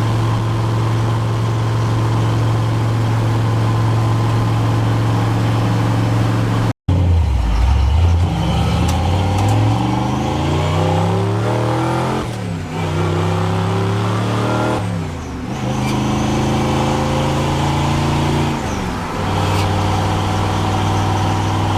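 1966 Chevy's engine and exhaust pipes while driving: a steady drone at cruise, then, after a short break, the revs climb and drop back three times as it accelerates.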